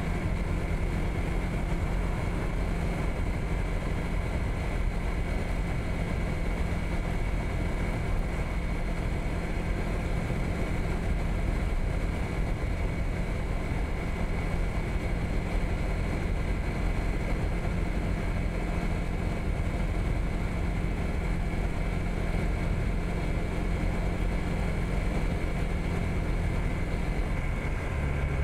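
Honda PCX160 scooter's single-cylinder engine running steadily at cruising speed, heard on board while riding.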